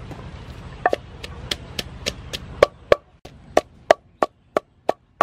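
Wooden pestle pounding garlic and chili in a mortar: a steady run of dull knocks, about three a second, starting about a second in.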